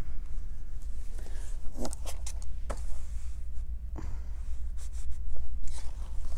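Quilt-block fabric pieces being handled: a few soft rustles and light clicks over a steady low hum.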